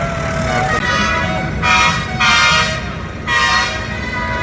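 Vehicle horn honking: a softer held tone from about a second in, then three loud blasts, over the low rumble of running engines.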